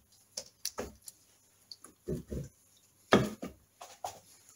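Scattered metallic clicks and clunks of a Triumph Trident T150V's new primary chain and chainwheel being worked onto the sprockets by hand, with a louder clatter a little after three seconds in.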